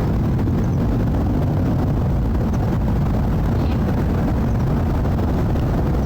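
Jet airliner flying overhead: a loud, steady, low engine rumble.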